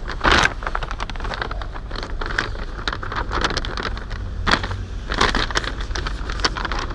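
Crinkling and rustling clicks from motorcycle boots being handled, over a steady low rumble.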